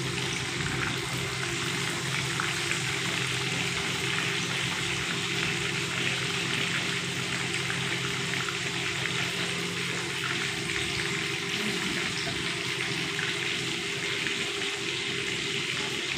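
Whole fish deep-frying in hot oil in a pan: a steady, dense sizzle with fine crackling from the bubbling oil.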